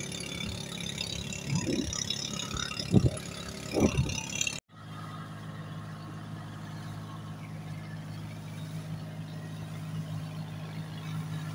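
Motor of a wooden outrigger boat (bangka) running steadily under way, a low, even drone. The first few seconds are noisier with a couple of louder irregular sounds, and the sound cuts off sharply and starts again about four and a half seconds in.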